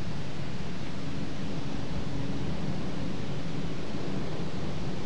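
Steady outdoor background noise: an even hiss with no distinct event.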